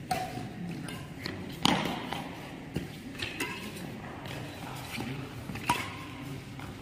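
Badminton rally: racket strings striking a shuttlecock with sharp, short hits every second or so, over low chatter from onlookers.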